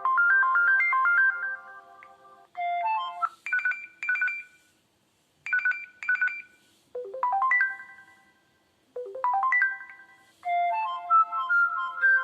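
LG Leon phone ringtones and message tones played one after another: the end of a looping electronic melody, then short two-note chimes and a quick rising arpeggio, each played twice with brief pauses between, and a new melody starting near the end.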